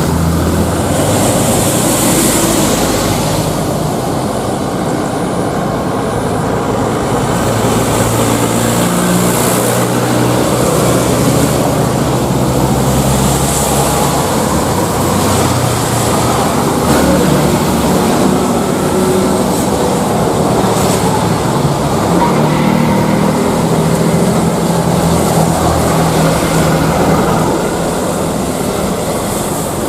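Jet airliner engines running loud and steady, with a low hum underneath that shifts slightly in pitch.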